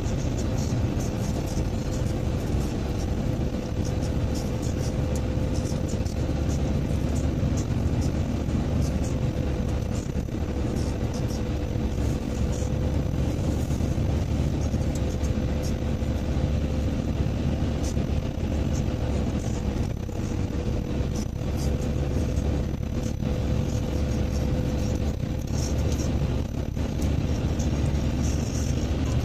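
Steady road noise inside a moving car: engine and tyre rumble on a wet road, with a constant mid-pitched hum.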